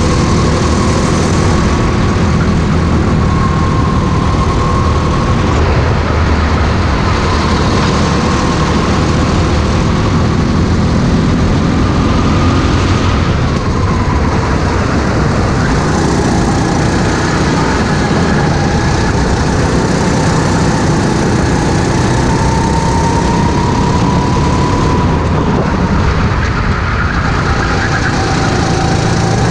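Racing kart engine running hard at lap speed, its pitch slowly rising and falling as the kart speeds up on the straights and slows for corners.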